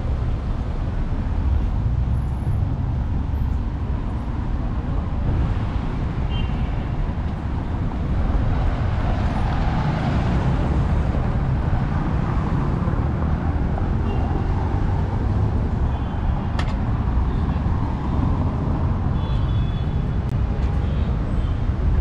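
Steady road traffic on a busy city avenue: cars driving past, swelling louder about halfway through as vehicles go by close to the sidewalk.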